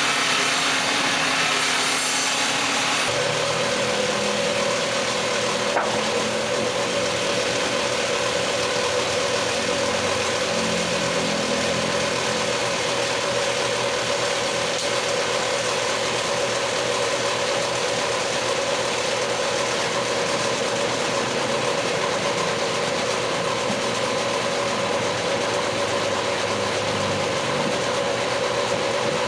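Electric woodworking power tool running steadily with a constant whine over a hiss; the first three seconds carry a harsher, brighter hiss.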